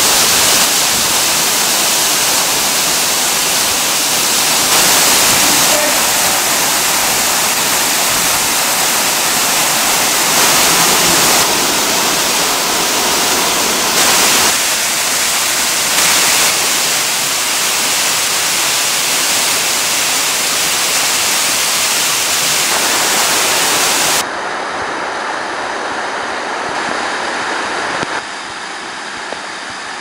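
Waterfall rushing close by, a loud, dense, steady hiss of falling water. About 24 s in it cuts to a quieter, duller rush of the falls, which softens again a few seconds later.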